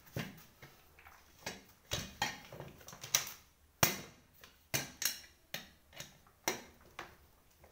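Sharp clicks and knocks, about a dozen at irregular intervals, from an office chair's casters being worked loose and pulled out of its chrome five-star base.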